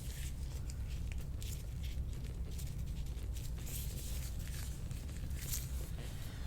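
Faint rustling and soft scuffing of hands and clothing moving on a treatment table, over a steady low hum.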